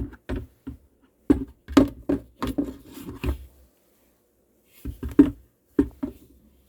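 Plastic parts of a Viomi humidifier being handled and slid back into place: a quick run of clicks and knocks for about three seconds, a pause, then a few more knocks.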